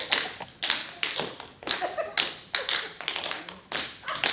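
Tap shoes striking a hard floor in sharp, separate taps, about three to four a second in an uneven rhythm.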